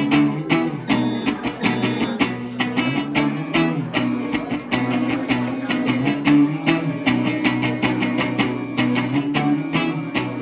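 A live band playing an instrumental stretch: guitars over bass and a steady, even drum beat, with no singing.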